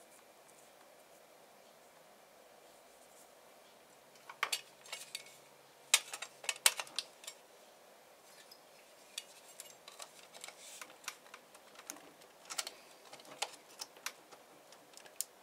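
Scattered sharp clicks and taps of a 3D-printed plastic gear and a scraper knocking against the printer's bed, starting about four seconds in, with the loudest pair of knocks a few seconds later.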